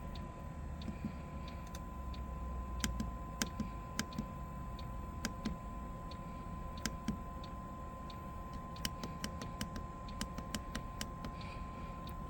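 Irregular sharp clicks, a couple of dozen spread unevenly, over the steady hum of a diesel bunk heater running with its fan blowing, with a thin constant whine throughout.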